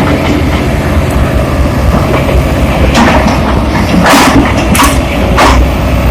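JCB backhoe loader's diesel engine running steadily, with a few sharp knocks in the second half.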